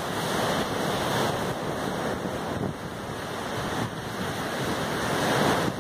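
Sea surf breaking on a sandy beach: a continuous rushing wash of waves that surges and eases.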